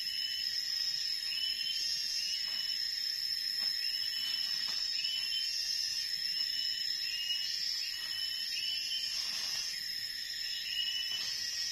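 Tropical forest insects droning steadily at two high pitches, with short chirping calls repeating one or two times a second over them. Faint rustling steps in leaf litter come through underneath.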